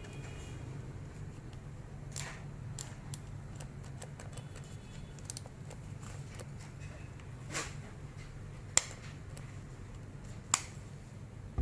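A few scattered sharp clicks and light taps, two of them louder about nine and ten and a half seconds in, over a low steady hum.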